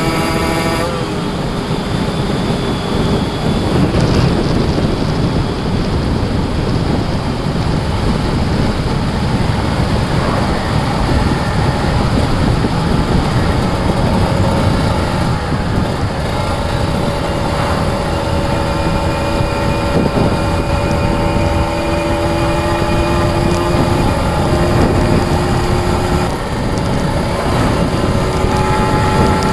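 Kawasaki Ninja RR's two-stroke single-cylinder engine running while riding, under heavy wind noise on the microphone. The engine note climbs gradually in pitch over the last ten seconds or so.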